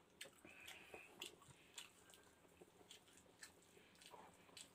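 Faint eating sounds: chewing with scattered soft mouth clicks, along with fingers picking at pancit noodles in a glass dish.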